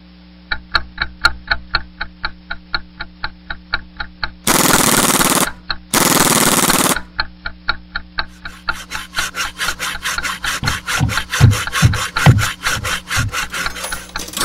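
Steady, regular ticking, about four ticks a second, like a clock sound effect, over a low hum. Twice near the middle it is cut by a loud rasping stroke of about a second, like a saw or file; later the clicking turns faster and denser, with a few low thuds.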